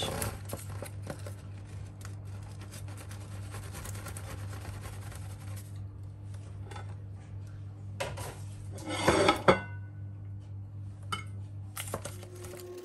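Serrated knife sawing through a baked sponge cake, a soft continuous rasping over a steady low hum. About nine seconds in comes the loudest part, a cluster of clinks from the knife and a plate, with a couple of single clicks near the end.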